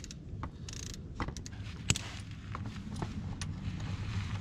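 Small metallic clicks and clinks of a ratchet wrench loosening a motorcycle oil drain plug and being put down on concrete, with one sharp clink about two seconds in, over a low steady hum.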